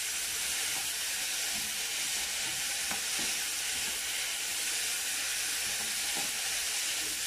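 Browned rice with freshly added diced tomato and green chile sizzling steadily in hot oil in a non-stick frying pan, stirred with a plastic spoon that scrapes the pan lightly a few times.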